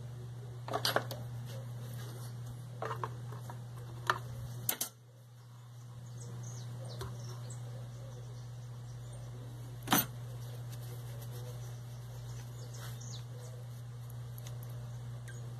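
Scattered clicks and knocks of plastic and metal as a chainsaw's fuel tank is opened and its fuel filter is fished out through the filler neck with a hooked tool, over a steady low hum. A handful of clicks come in the first five seconds and one sharp knock about ten seconds in.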